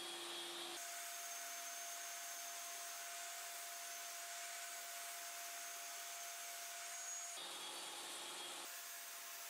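Table saw running and cutting a wood panel, heard faintly as a steady hiss with a thin whine. The sound changes abruptly about a second in and again near the end.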